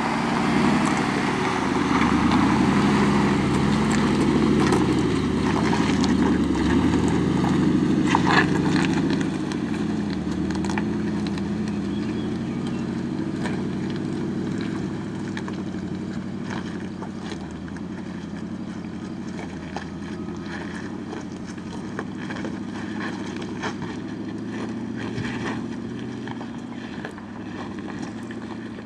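Mercedes-Benz G-Class engine running under load as the vehicle crawls up a steep rock slope, loud at first and then fading as it climbs away. Scattered clicks and knocks from the tyres on the rock.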